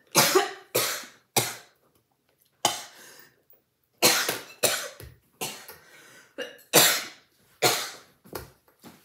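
A woman coughing in a string of short, separate coughs, about a dozen in all, set off by the fumes of habanero popcorn burning her throat.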